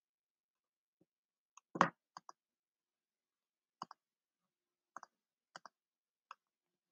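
Computer mouse clicking a few times, the clicks often in quick press-and-release pairs, with one louder knocking click about two seconds in.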